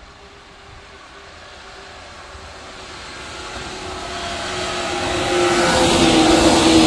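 JR East 107 series electric multiple unit approaching and running past, its sound growing steadily louder. A steady hum from the train is strongest over the last two seconds as the cars come alongside.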